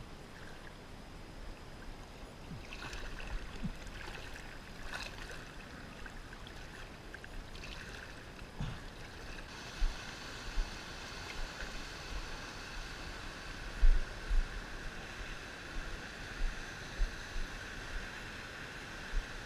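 Stream water running over a rocky streambed. From about halfway a steady high-pitched hum joins it, with occasional low thumps.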